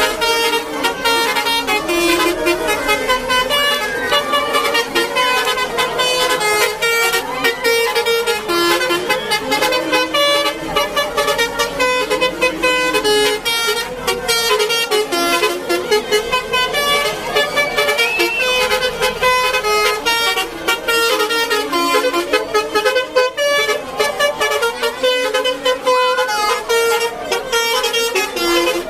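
Basuri 'telolet' multi-tone bus horn playing a loud, fast melody of short steady notes that jump between pitches without pause.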